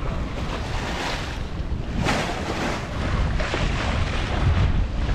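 Wind buffeting the microphone over the rush of water along a sailboat's hull as it sails, with swells of hiss from the bow wave, the loudest about two seconds in.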